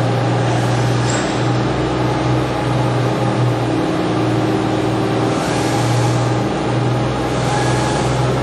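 Toshiba MPF-2114C bridge-type vertical machining center running with its spindle turning at 2,000 RPM: a steady machine hum with a constant low tone. Two soft hissing swells come in the second half.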